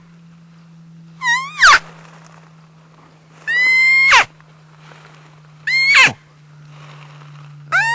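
Elk-style calls: four high, whistling mews about two seconds apart, each held briefly and then dropping steeply in pitch at the end, over a steady low hum.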